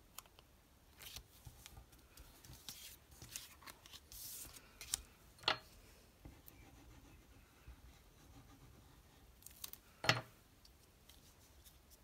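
Cardstock pieces being handled, glued and pressed down on a craft mat: faint rustles, scrapes and small clicks, with two sharper taps about five and ten seconds in.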